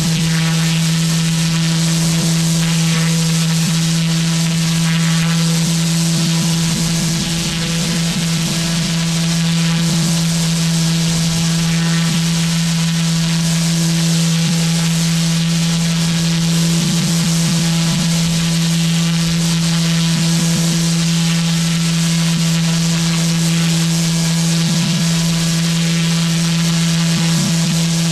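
Pressure washer with a turbo (rotary) nozzle spraying block paving: a loud, steady hiss of water on the pavers over the constant hum of the machine.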